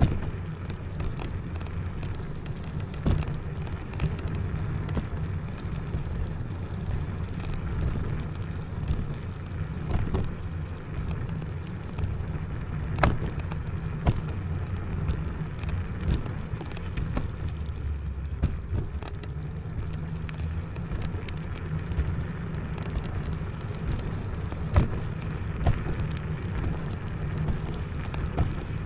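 IO Hawk Legacy electric scooter ridden off-road over rough, muddy ground: a steady low rumble of wind and tyres, broken by frequent knocks and rattles as it goes over bumps, one sharper knock about midway.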